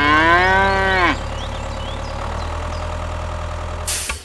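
A cow moos once for about a second, its pitch rising and then falling, over a steady low engine hum. A short burst of hiss comes near the end.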